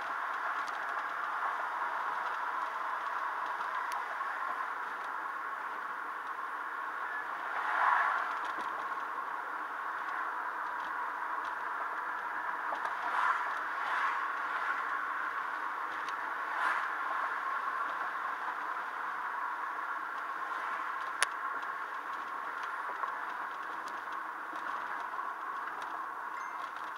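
Steady road and engine noise of a moving car, heard from inside the cabin through a dashcam, swelling briefly a few times, with a single sharp click about three-quarters of the way through.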